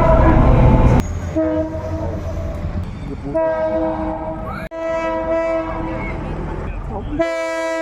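Train horn sounding a steady chord in several long blasts, broken by sudden cuts, with the heavy rumble of the running train loudest in the first second.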